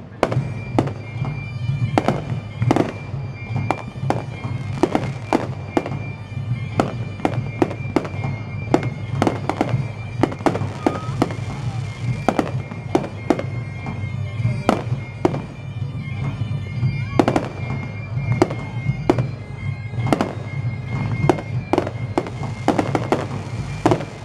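Aerial fireworks display: a rapid, irregular string of shell bursts and bangs, several a second, going on without a break.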